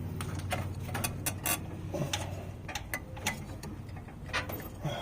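Irregular light clicks and taps of hands, belt and metal parts as a mower drive belt is worked around a pulley and over the deck's brace lip.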